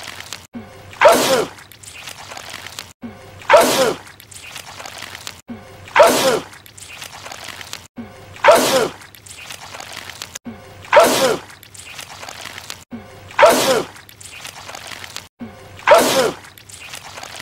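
A man's loud sneeze, the same sneeze repeated over and over about every two and a half seconds, seven times; each is a sharp burst ending in a falling cry.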